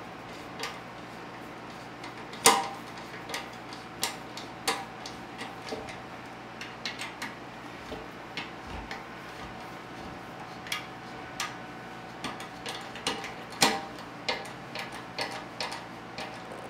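Screwdriver tightening the bidet mounting-plate screws into the rubber plugs on a toilet bowl: irregular small clicks and ticks, with a sharper knock about two and a half seconds in and another near the end.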